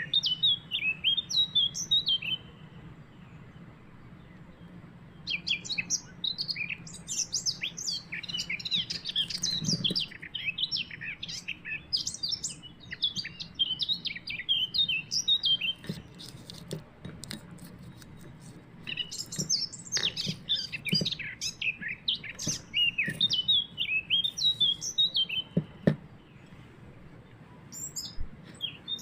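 A small bird chirping and twittering in quick runs of high notes, in several bouts separated by short pauses, over a faint low steady hum.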